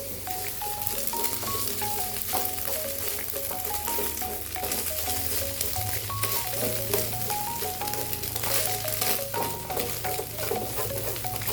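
Chicken and beaten egg sizzling in hot oil in a pan as they are scrambled, with a spatula stirring and scraping at intervals. A simple stepping background melody with a bass line plays throughout.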